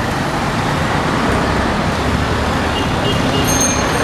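Steady road traffic noise, a continuous rushing hum of passing vehicles.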